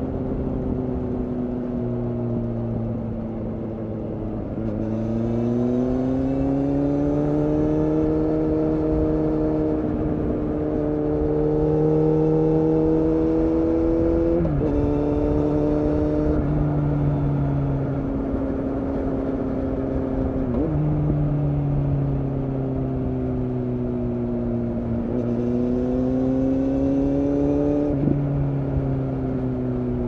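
2015 Kawasaki Z800's inline-four engine through an Akrapovic exhaust, heard from the rider's seat on the road. The engine pulls up through the revs for several seconds, and a quick upshift cuts the pitch about halfway through. It then eases off, and picks up again with another shift near the end.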